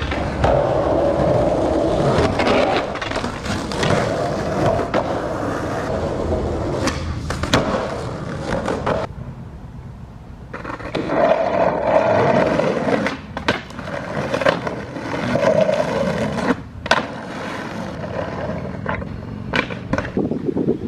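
Skateboard wheels rolling on asphalt, with sharp clacks of the board being popped and landing scattered through. The rolling quietens for a second or two near the middle, then picks up again.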